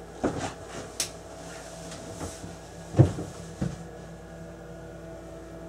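Galley cupboard doors knocking and clicking a few times as they are opened and shut. A sharp click comes about a second in, and the loudest, dull thump about three seconds in.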